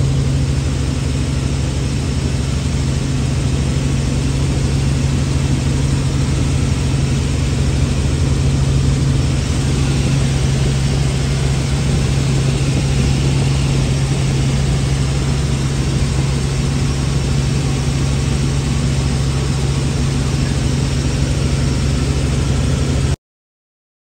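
Helicopter heard from inside the cabin in flight: a steady low drone from the rotor and engine with a hiss over it. It cuts off suddenly near the end.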